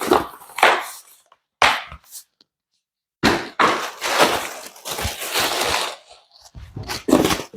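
Cardboard packing being pulled out of a shipping box and handled, crunching and scraping in several bursts with short pauses between them.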